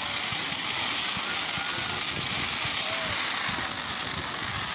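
A fireworks cake firing crackling comets in fans: a steady hiss and crackle of many small pops as the star trails rise.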